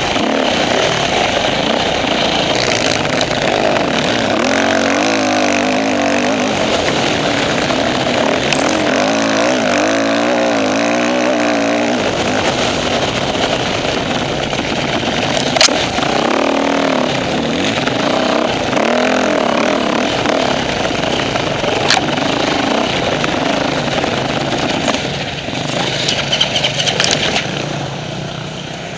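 Off-road dirt bike engine running under way, revving up and down over and over, recorded on board the bike, and dropping back near the end.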